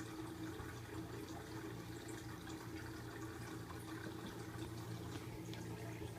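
Water trickling in a turtle tank with small drips, over a steady low hum.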